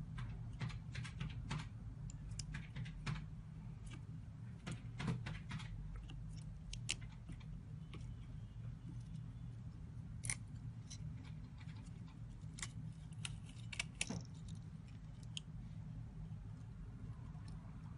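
Small metal repair tools clicking and tapping irregularly on a phone's parts, a few taps a second at most, over a steady low hum.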